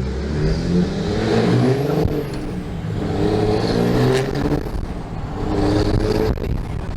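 Turbocharged car engine revved three times, each rev rising and falling in pitch with a faint turbo whistle sweeping up and down above it.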